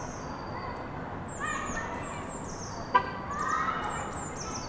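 Outdoor ambience of small birds singing high, thin, falling notes over and over, with lower, bending calls beneath and a steady background hum. A single sharp click stands out about three seconds in.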